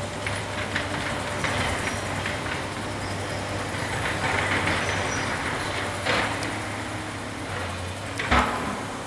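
Excavator's diesel engine running steadily at demolition work, with a sharp clank about six seconds in and a louder knock near the end.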